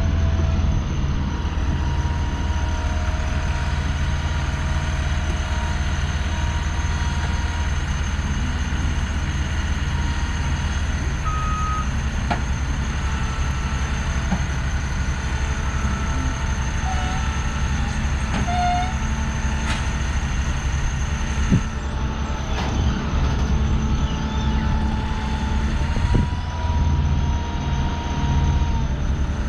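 Diesel engines of a flatbed semi truck and a truck-mounted forklift running steadily while lumber is unloaded, with a few short high tones here and there.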